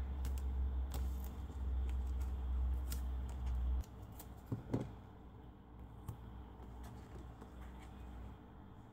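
Hands handling card stock and foam tape: soft paper rustles and light taps as the tape is pressed down and the paper panel is moved. A low steady hum underneath stops abruptly about four seconds in.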